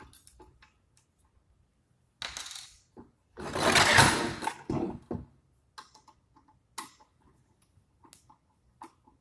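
The metal fence of a DeWalt DW745 table saw being handled as it is taken off and apart: light metallic clicks and clinks, a short noisy scrape a little after two seconds in, and a longer, louder scrape and rattle from about three and a half to five seconds in.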